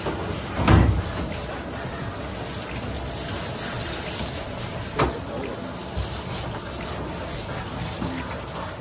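Water spraying from a hand-held hose nozzle onto a wet dog in a stainless steel grooming tub, a steady hiss of running water. A loud knock comes about a second in, and a smaller one near five seconds.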